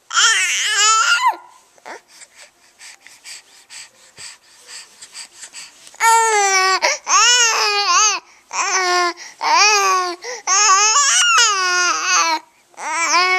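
Young baby vocalizing in long, sing-song coos that slide up and down in pitch. A burst right at the start is followed by a pause of about four seconds, then a string of coos back to back.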